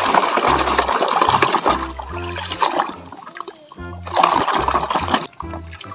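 Muddy water sloshing and splashing as a plastic toy dump truck is pushed and swished through it, in two bursts, about the first second and again around four seconds in. Background music with a repeating bass line plays throughout.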